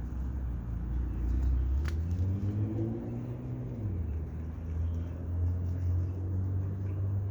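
An engine running with a low hum; its pitch rises about two seconds in and falls back about four seconds in.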